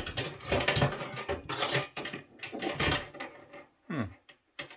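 Brass outlet strips, wires and plastic parts of a battery backup's outlet housing clicking and rattling as they are handled and pulled loose, a quick run of irregular metal-and-plastic clatter.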